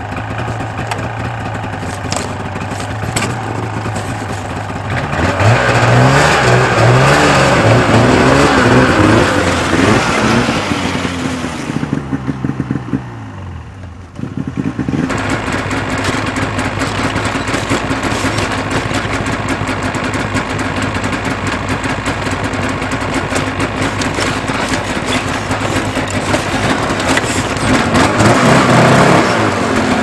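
Snowmobile engines running after a cold start. The engine is revved up and down several times for a few seconds, then after a short dip a snowmobile idles steadily, rising briefly again near the end.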